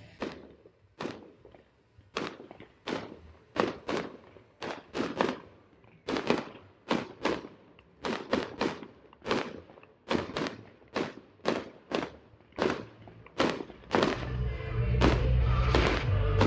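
A run of sharp percussive hits, one or two a second and unevenly spaced, each ringing out briefly. About fourteen seconds in, music with a deep bass swells in under them.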